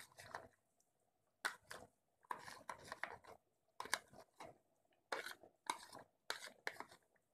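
Spoon scraping ground coconut out of a plastic box into a pot, a series of short scrapes and taps.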